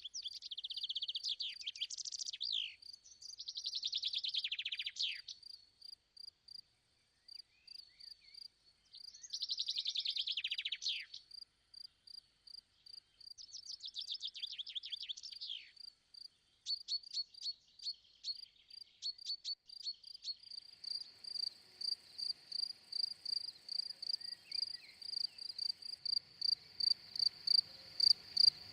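Songbird singing in bursts of rapid, high trilling phrases, then a cricket's regular high chirping, about two chirps a second, growing louder toward the end.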